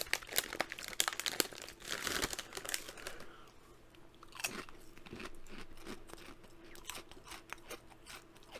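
A person crunching and chewing potato chips: dense, loud crunches for about the first three seconds, then quieter chewing with scattered crunches.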